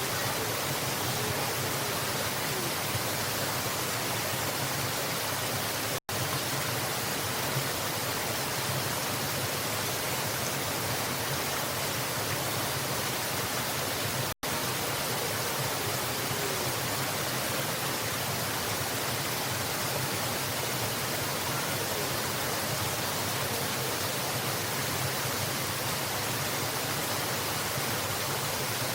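Waterfall rushing with a steady, even roar. The sound cuts out for an instant twice, about six and fourteen seconds in.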